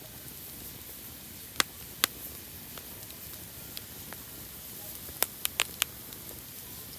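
Wood campfire crackling: a steady hiss of burning wood with sharp pops, two about a second and a half in, then a quick run of four about five seconds in.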